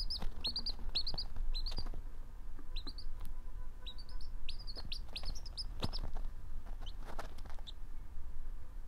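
Pekin bantam chick peeping, short high peeps mostly in twos and threes, stopping near the end.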